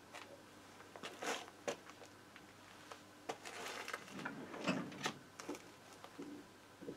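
Faint scattered clicks and small knocks, with a brief rustle a little past the middle, from small parts and tools being handled on a workbench.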